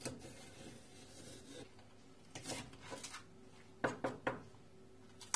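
Chef's knife cutting through spring onions and knocking on a wooden chopping board. A few quiet, scattered cuts, the clearest two about four seconds in.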